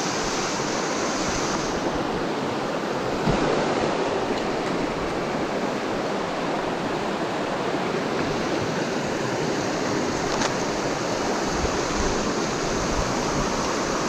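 Mountain stream flowing steadily over its bed: an even, unbroken rush of water.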